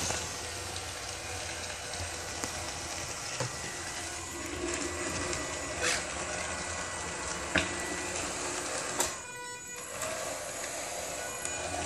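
Small DC gear motors of a homemade robotic wet mop whirring steadily as it drives over tile. There are a few sharp clicks along the way, and the whir drops out briefly about nine seconds in before starting again.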